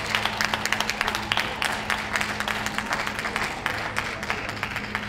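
An audience applauding, a dense patter of many hands clapping that thins out toward the end, over a steady low hum.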